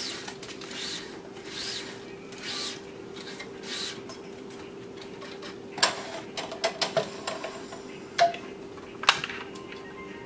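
Tennis string being drawn through a racquet's strings by hand, a quick swishing zip that rises and falls about once a second, followed by the clicks and clacks of the stringing machine's tension head and string clamps, with two sharp clacks near the end.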